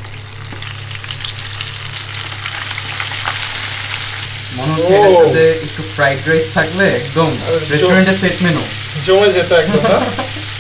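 Flour-coated chicken drumsticks deep-frying in a pan of hot oil: a steady sizzle and bubbling. From about halfway through, a person's wordless voice sounds over the frying, louder than it.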